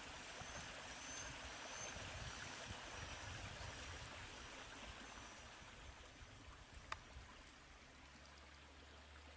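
Light rain falling on the surface of a small canal, a soft steady hiss, with a single sharp click about seven seconds in.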